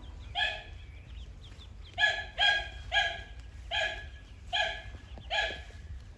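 An animal barking: seven short, pitched barks, unevenly spaced, with a quick run of three about two seconds in.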